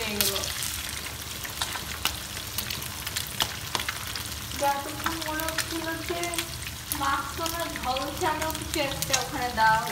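Pomfret steaks shallow-frying in hot oil in a pan, sizzling with a steady crackle of small pops. From about halfway in, a voice is heard in the background over the sizzle.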